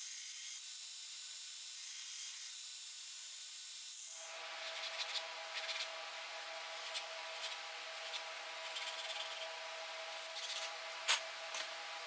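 Belt grinder grinding a small steel handle fitting, a steady high hiss for about four seconds. Then a steady machine hum with irregular scratchy strokes of hand-sanding on the wooden handle, and one sharp click near the end.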